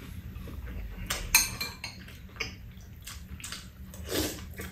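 Metal spoons and chopsticks clinking and scraping against bowls and a frying pan while people eat: a few scattered clicks, the sharpest about a second in.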